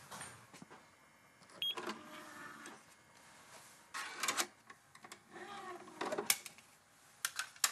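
A compact stereo's CD tray running on its small motor as a disc is loaded, with several sharp clicks and handling noises spread through.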